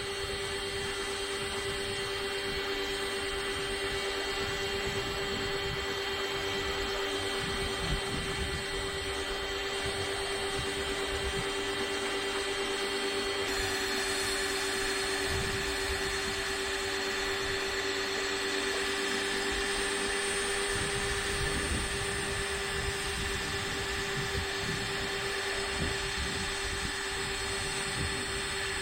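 Pressure washer running steadily: a constant motor hum under the hiss of the water spray, which turns brighter and louder about halfway through.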